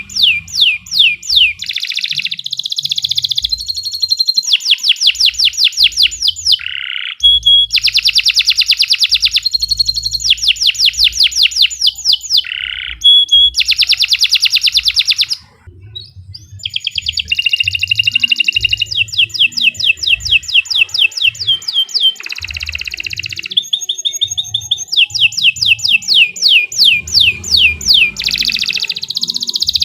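Domestic canary singing a long, loud song of fast rolls and trills, notes repeated in rapid runs and shifting between phrases, with one short break about halfway through.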